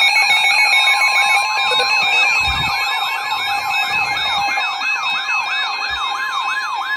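Emergency weather alert tones from more than one receiver sounding at once. A fast siren-like yelp sweeps up and down about three to four times a second over steady alarm tones. A pulsed higher beep stops about a second and a half in, and a steady tone joins about a second in.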